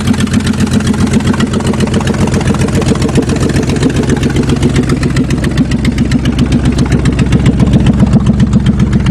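1998 Ford pickup's engine idling roughly just after a cold start, with a fast, uneven beat. The owner says it is running on only a couple of cylinders, having earlier suspected a fouling spark plug behind its backfiring.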